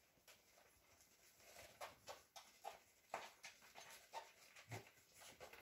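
Three-week-old miniature poodle puppies nursing: faint suckling and smacking with small puppy noises, many short sounds in quick succession, busier after about a second and a half.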